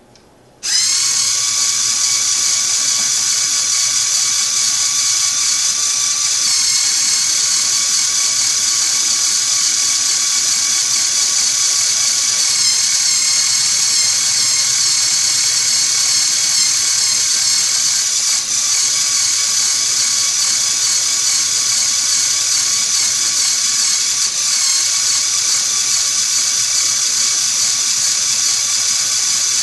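LEGO Mindstorms NXT motor spinning a LEGO Technic gear train and wheel: a steady, high-pitched whirring whine that starts suddenly about half a second in. The whine brightens slightly about six seconds in.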